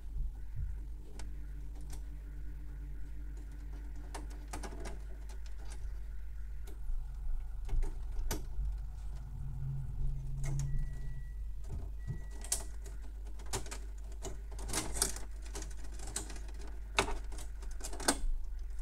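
Scattered light clicks and taps of a screwdriver and fingers on the plastic and metal inside a Canon MF216n laser printer, as a screw is undone and cable connectors are handled. The clicks come thicker in the second half, over a steady low hum.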